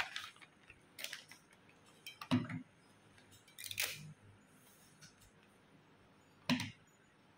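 Small wrapped plastic amulet cases being handled, unwrapped and set down on a table: a few scattered clicks and light knocks, the loudest about two seconds in and near the end, with brief rustles of plastic.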